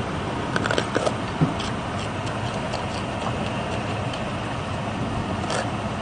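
Crunching bites into a raw green pepper, a few sharp crackles in the first second and a half, over a steady rushing background noise.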